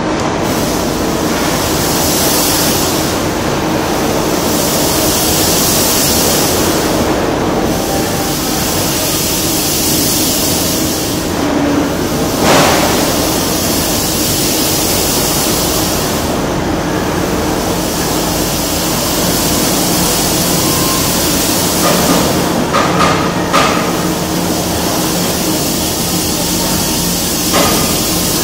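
Steady, loud air and machine noise of an industrial hall's ventilation and extraction running, with a high hiss that swells and fades about every four seconds. A few short knocks sound near the middle and near the end.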